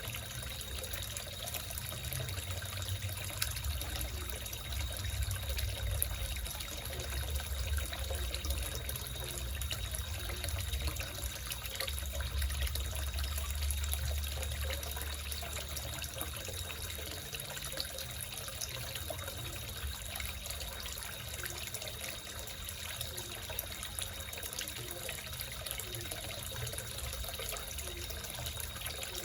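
Water trickling and splashing steadily into a small koi pond, with a low rumble that is stronger in the first half.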